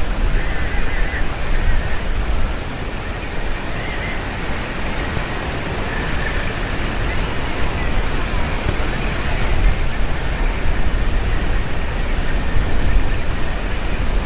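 Steady rushing noise with a fluctuating low rumble, like wind on the microphone. Faint distant black woodpecker calls come through it a few times: near the start, and around four, six and nine seconds in.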